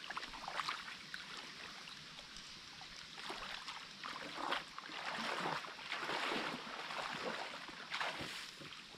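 A person's steps wading through shallow water: irregular swishes and splashes, the loudest of them between about three and eight seconds in.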